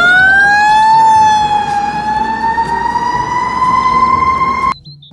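Fire truck siren wailing, its pitch dipping and then climbing slowly and steadily. It cuts off abruptly near the end.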